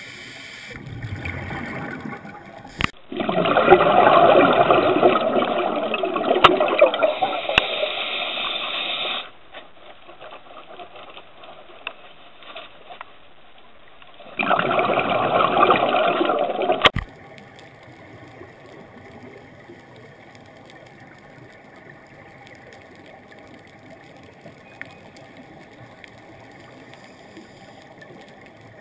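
A scuba diver's exhaled breath bubbling out of the regulator, heard underwater: loud rushing bursts from about three to nine seconds in and again from about fourteen to seventeen seconds, with quieter stretches between. After that only a faint, steady underwater hiss remains.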